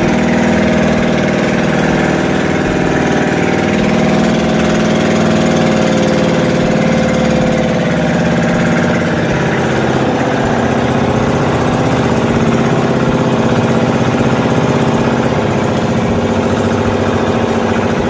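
Engine of a motorized outrigger boat (bangka) running steadily at a constant pitch.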